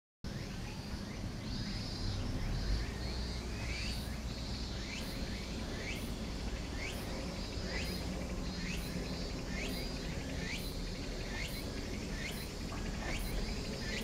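Outdoor ambience: a small creature calls with short rising chirps, about two a second, over a steady low rumble.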